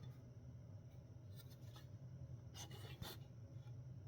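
Faint handling noise from the teardown: a few short scratching and rubbing strokes against the electronics, over a steady low hum.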